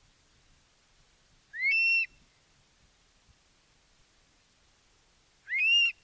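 Eurasian stone-curlew calling: two short whistled calls about four seconds apart, each sliding up in pitch and then holding briefly.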